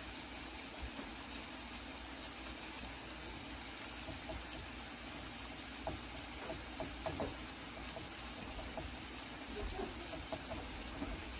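Chicken breasts with sliced peppers and onions sizzling steadily in a frying pan, a soft even hiss, while a fork spreads sauce over the chicken, with a few faint fork taps about six to seven seconds in.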